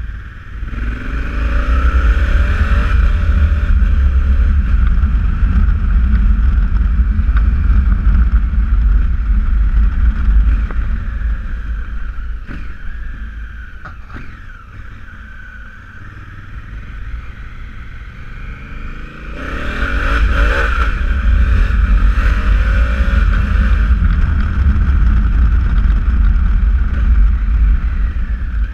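Honda Africa Twin CRF1000's parallel-twin engine pulling hard twice, rising in pitch through the gears. Between the two pulls, about 12 to 19 seconds in, it runs quieter as the bike slows.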